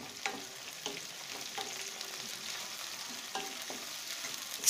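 Sliced onions, dried red chillies and curry leaves sizzling in hot oil in a kadai while a spatula stirs them, with a few light scrapes against the pan. The onions are being fried toward brown.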